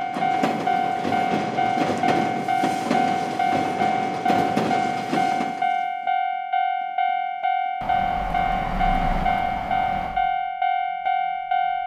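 Japanese railroad crossing warning bell ringing its steady 'kan-kan' at two to three strikes a second, while a train rushes past for about the first six seconds and another passing vehicle rumbles through from about eight to ten seconds in.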